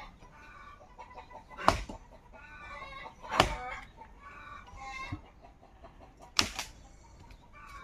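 Three sharp chopping blows into a log, firewood being split by hand, with hens clucking between the blows.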